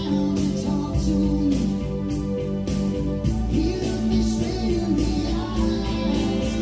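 A recorded song with singing, guitar and a steady beat, played back through a vintage Yamaha CA-810 stereo integrated amplifier and its speakers.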